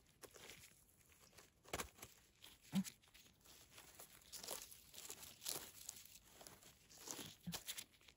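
Faint rustling, with scattered small crunches and snaps, of gloved hands handling a bolete mushroom among dry conifer needles and twigs.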